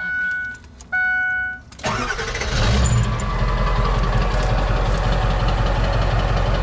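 Pickup truck's dashboard warning chime beeping about once a second, then the engine cranks and catches about two seconds in and settles into a steady idle.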